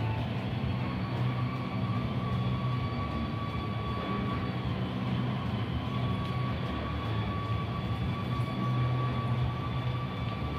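Steady mechanical drone with a low hum that swells and fades slightly, and a constant high whine over it.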